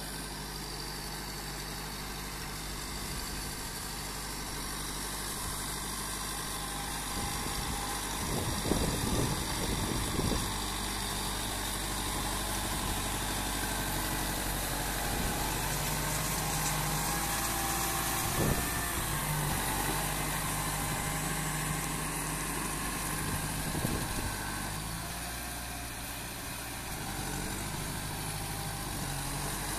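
Kubota MU5501 tractor's four-cylinder diesel engine running steadily under load as the 4WD tractor works through deep paddy mud, with a few short knocks about a third of the way in and again later.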